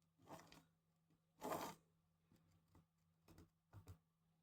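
Faint handling sounds from a drill guide jig pushed and rocked on a sheet of glass to show its play: one short soft scrape about a second and a half in, then a few light ticks.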